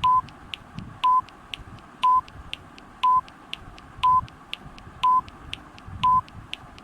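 Countdown timer beeping once a second with a short, steady tone, and a tick half a second after each beep, counting down a ten-second challenge.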